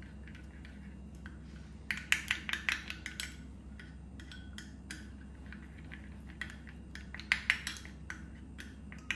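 A spoon clinking and scraping against a small ceramic bowl while stirring thick chili sauce marinade: scattered light clicks, with two quicker runs of them, about two seconds in and again past seven seconds, over a faint steady hum.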